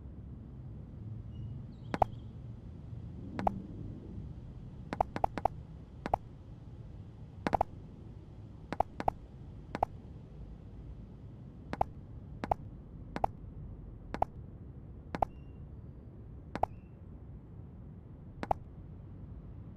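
Virtual-reality app's interface click sounds as virtual calculator keys and buttons are pressed: about twenty short, sharp clicks spaced irregularly, some in quick runs of two to four, over a faint steady hum.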